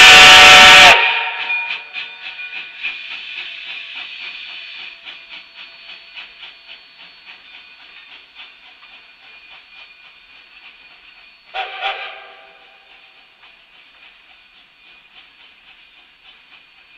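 Narrow-gauge steam locomotive departing: a loud chime whistle blast cuts off about a second in, then a quick rhythm of exhaust beats fades as the train pulls away, broken by one short whistle toot about two-thirds of the way through.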